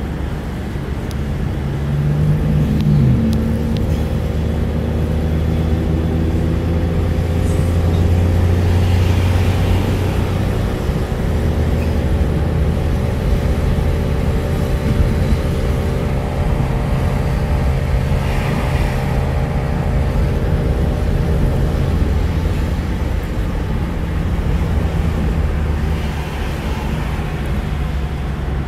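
Car engine and tyre noise heard from inside the cabin while driving, a steady rumble. An engine hum rises gently in pitch over the first several seconds as the car gathers speed, holds, then fades out about three-quarters of the way through.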